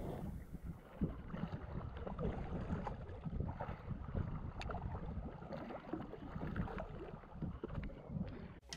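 Splashing water as a hooked shark thrashes at the surface beside the boat, with irregular splashes and knocks over a steady low rumble of wind on the microphone and the boat.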